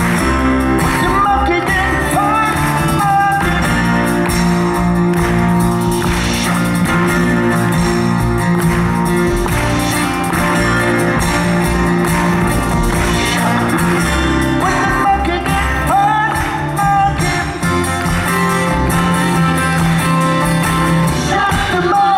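Live rock band playing, with singing over guitar and the rest of the band.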